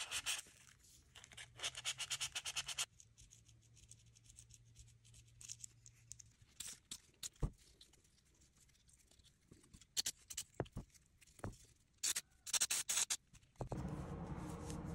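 Sandpaper rubbed by hand in quick back-and-forth strokes on a pocket knife's G10 handle, sanding off excess glue around the shield. The sanding stops about three seconds in, leaving only scattered small clicks and taps of the knife being handled. A short burst of rubbing comes near the end, and then a steady background hiss begins.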